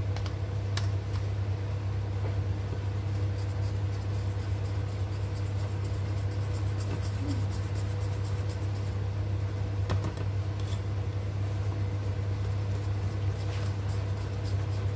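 Spoon stirring thick banana loaf batter in a bowl, making faint scrapes and light clicks, over a steady low hum.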